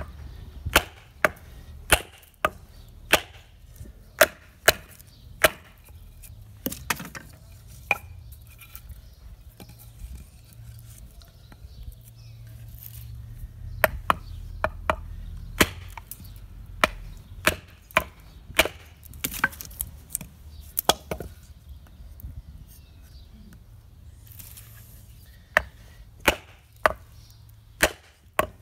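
A wooden baton striking the spine of a Taramundi fixed-blade knife, driving the blade down through a piece of very dry, hard pine to split it. Sharp wooden knocks come about once or twice a second in several runs, with pauses between them.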